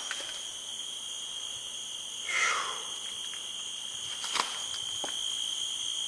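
A chorus of night insects trilling steadily at two high pitches, with footsteps and rustling through dry weeds and brush. A louder swish of brushed vegetation comes about two and a half seconds in, and a couple of sharp snaps follow about four and five seconds in.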